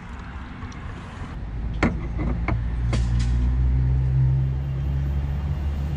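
Gasoline pouring from a gas can into a new fuel-water separator filter, stopping after about a second and a half. A few knocks and clicks follow as the filter is handled and fitted. Under them a low, steady engine hum comes up and holds.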